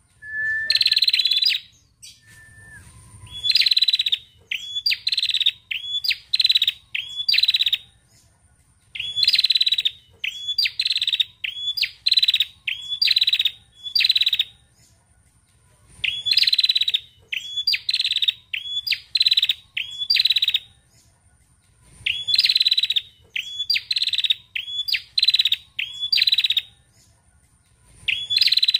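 Caged tailorbird calling: bouts of four to seven short, sharp, high notes, each rising quickly at the start, about one and a half to two a second, with a pause of a second or two between bouts.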